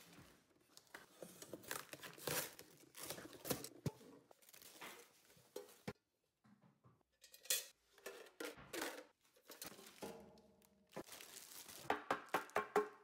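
Cardboard packaging and plastic wrap being handled and pulled from a carton, rustling, scraping and crinkling, with a quick run of crackles near the end as plastic film is handled.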